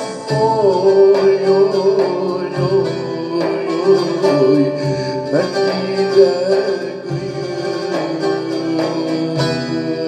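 Instrumental break in a Turkish folk song: a wavering melody line over a steady accompaniment.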